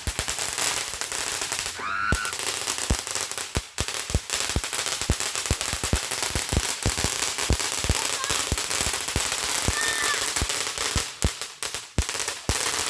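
Firecrackers going off: a long, rapid, irregular run of sharp pops over a steady crackle.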